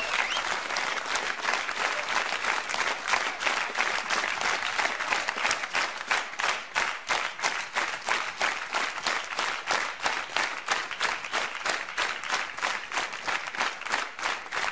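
Studio audience applauding, the scattered clapping settling into steady rhythmic clapping in unison.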